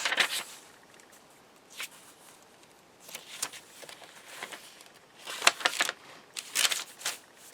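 Paper rustling and crinkling in several short bursts as the pages, pockets and cards of a handmade paper journal are handled.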